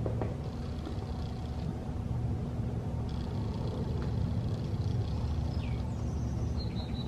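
Portable electric tyre inflator running with a steady low hum, with a few faint high chirping notes over it.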